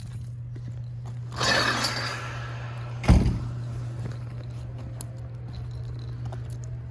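A steady low hum, with a rustling scrape about a second and a half in and one heavy thump about three seconds in.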